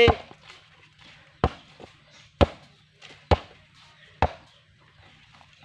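Basketball dribbled on packed dirt: five sharp bounces, about one a second.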